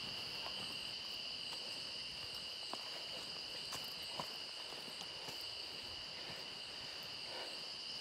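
Insect chorus of crickets or cicadas: a steady high-pitched drone at two pitches, with a few faint ticks of footsteps.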